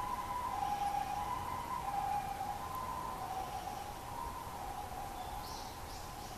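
Two-tone hi-lo siren of an emergency vehicle, alternating between two pitches about every half second and slowly fading.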